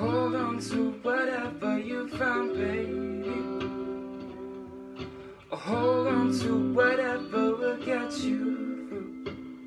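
A man singing to a Stratocaster-style electric guitar playing sustained chords. The voice comes in two phrases, one at the start and another about halfway through, with the guitar ringing on between them.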